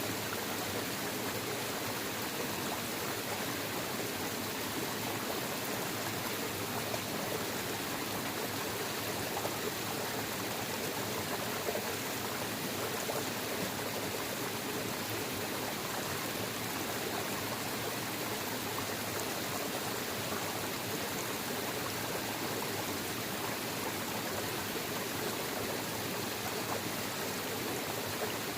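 Waterfall: water falling and rushing steadily, an even, unbroken wash of noise.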